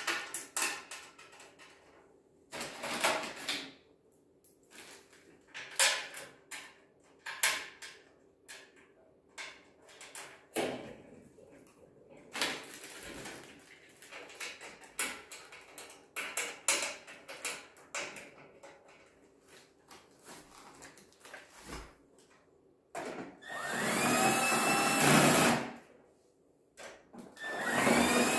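Cordless drill spinning up and driving screws into the fire pit table's steel frame, two runs of a couple of seconds near the end, each rising in pitch as the motor gets up to speed and then holding steady. Before that come scattered clicks and knocks of parts being handled and fitted.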